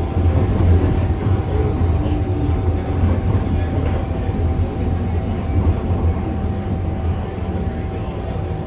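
Interior running noise of an MTR M-train electric multiple unit: a steady low rumble of wheels on rail with a constant mid-pitched hum. It grows slowly quieter toward the end as the train slows for a station.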